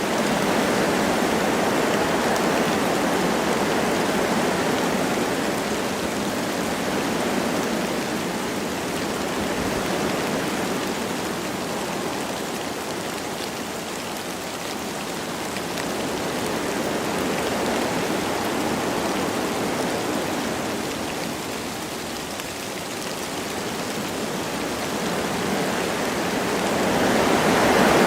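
Wind blowing through forest trees with light rain, a steady rushing that slowly swells and eases in long gusts, rising again near the end.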